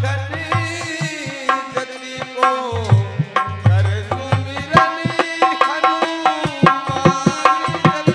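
Devotional bhajan music: long, bending sung notes over harmonium, with dholak drumming keeping a brisk beat of sharp slaps and deep bass strokes.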